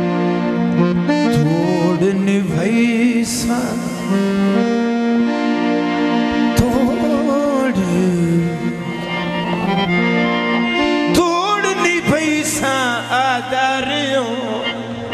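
Harmonium playing sustained chords, with a man's wordless, ornamented vocal phrases wavering over it twice.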